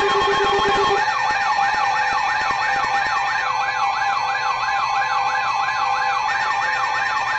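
Emergency Alert System attention tones for a test tornado warning, played by more than one weather and FM radio at once. Steady alert tones are overlapped by a siren-like tone that rises and falls about three times a second, and a lower pulsing beep stops about a second in.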